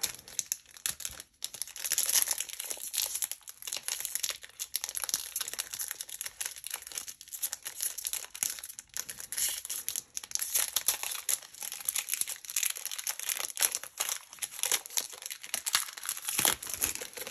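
Foil wrapper of a Magic: The Gathering Kaldheim Set Booster pack being torn open and crinkled by hand, a dense run of crackling that goes on for most of the stretch.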